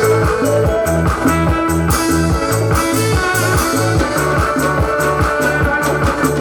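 Backing music with a steady, regular bass beat and guitar.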